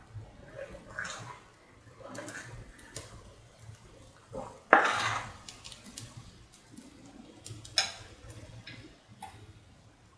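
Kitchen clatter: scattered clinks and knocks of utensils and dishes, the loudest about five seconds in and another near eight seconds, over a faint low hum.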